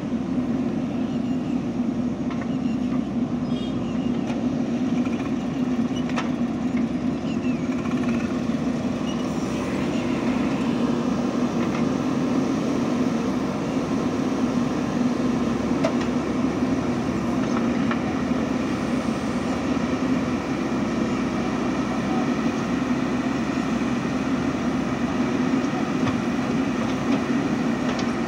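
JCB 3DX backhoe loader's diesel engine running steadily under working load as its backhoe digs and loads soil, a constant low drone.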